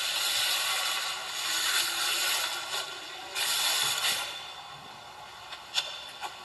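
Slime being squeezed and worked by hand, a crackly, hissing noise in two long stretches that fades in the last couple of seconds, with a few sharp clicks near the end.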